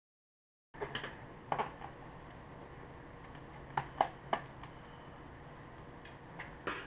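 A handful of light, scattered clicks and taps from a screwdriver and the laptop's plastic panels being handled during disassembly, over a faint steady hum of room noise.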